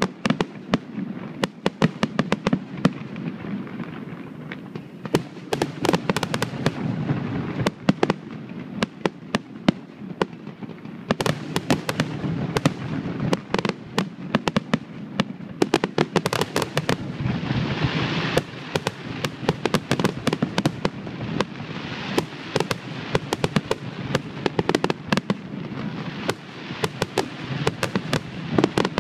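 Aerial fireworks display: shells bursting in quick succession, a continuous run of sharp bangs and booms over a steady crackle.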